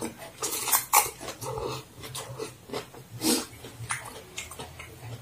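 Close-up mouth sounds of a person slurping and chewing fried egg noodles, with short wet slurps and breaths. The loudest slurps come about half a second to a second in and again just after three seconds.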